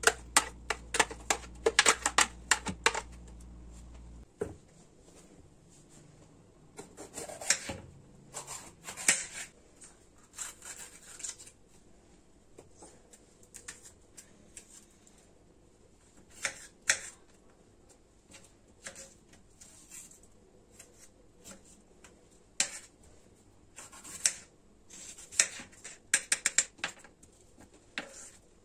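Kitchen knife cutting a red bell pepper on a bamboo cutting board: sharp clicks of the blade striking the wood, spaced apart at first, then a quick run of chops near the end as the pepper is diced. At the start, a dense cluster of knocks and scrapes as a blender jug of purée is tipped and scraped out into a glass bowl.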